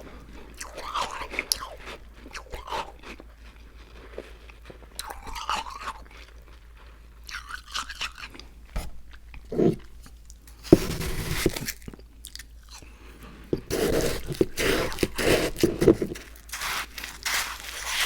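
Close-miked chewing and biting into crunchy food, with irregular crunches and louder bursts of crunching about ten seconds in and again near the end.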